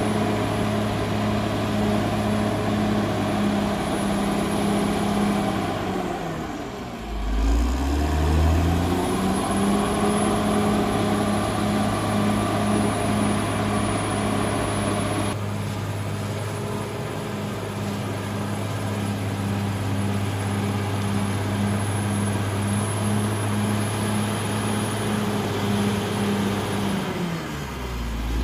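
Cat D6R XL bulldozer's diesel engine running steadily under load as the dozer pushes earth. The engine note sinks sharply and climbs back up about a quarter of the way in, and again near the end.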